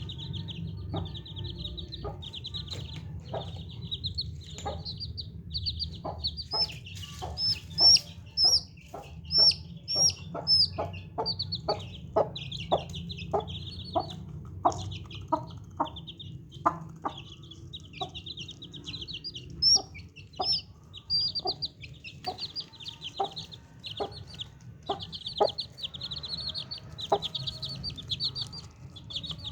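Baby chicks peeping fast and without a break, high-pitched, with many short clicks or taps in between and a steady low hum underneath.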